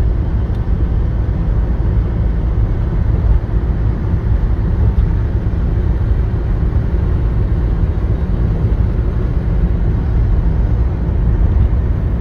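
Steady low rumble of a car driving at speed on smooth new asphalt, tyre and engine noise heard from inside the cabin.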